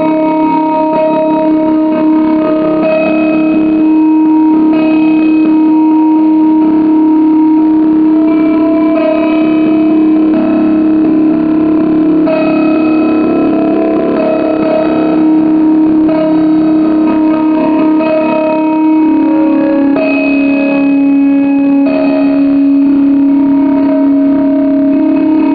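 Ukulele played live through a delay pedal, its repeats piling up into long, overlapping held notes. The main low tone drops slightly in pitch about twenty seconds in.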